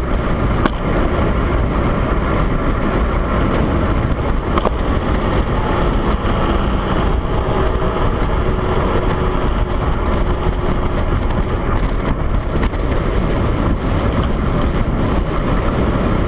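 Steady rush of wind over the microphone on a fast bicycle descent of a mountain road, with two sharp clicks in the first few seconds.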